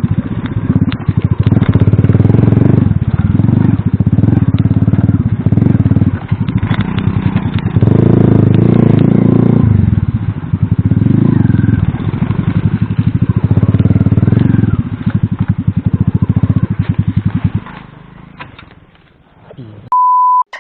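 Alpha moped's small single-cylinder four-stroke engine being ridden hard off-road, its revs rising and falling again and again. The engine sound fades away about 17 seconds in, and a short steady beep sounds near the end.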